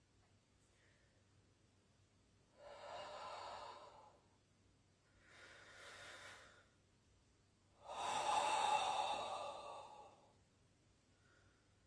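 A person breathing out heavily three times, each breath lasting a second or two, the last one the loudest.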